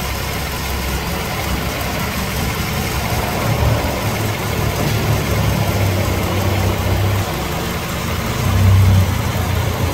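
A 2004 Honda CR-V's 2.4-litre four-cylinder engine idling steadily, heard from underneath the car, with a brief swell in loudness near the end.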